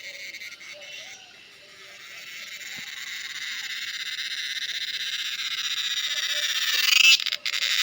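Cicada singing: a high-pitched buzzing drone that starts faint and swells steadily for several seconds. Near the end it breaks into a loud pulsing trill, stops for a moment, and starts again.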